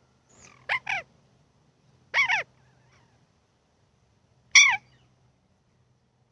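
Short pitched animal calls: two quick calls just under a second in, then two single calls falling in pitch, at about two seconds and four and a half seconds.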